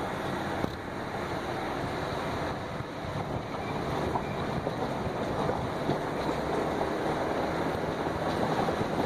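Jeep Grand Cherokee driving over a gravel fire road, heard from inside the cabin: a steady rumble of the tyres crunching over gravel together with the engine running and wind noise.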